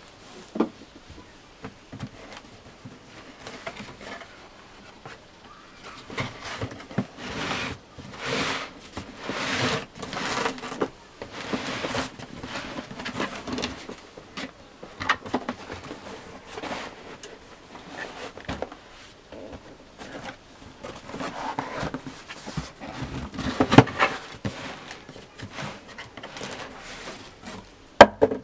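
Cardboard boot box being handled and its lid opened: irregular scraping, sliding and rustling of cardboard, with a few sharp knocks.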